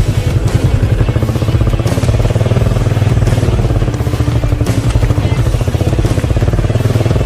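Motorcycle engine running steadily on a muddy off-road trail, a continuous low-pitched rapid pulse with no break.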